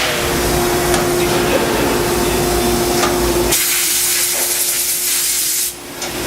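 Fadal 3016FX vertical machining center running a cutting cycle, coolant spraying with a steady hiss over a steady spindle tone and low rumble. About three and a half seconds in, the tone and rumble stop, leaving a brighter hiss that dips briefly near the end.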